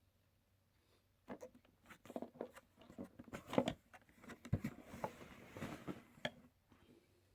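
Cardboard retail box being handled and turned over: a few seconds of irregular rustling, tapping and clicking.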